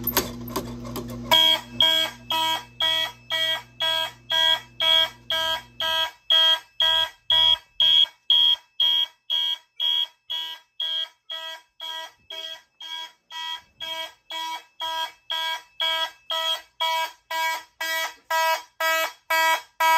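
Fire alarm horns sounding in a steady rapid pulse, about two and a half pulses a second, starting about a second in. They have been set off by pulling a Mircom manual pull station. A lower steady hum underneath stops about six seconds in.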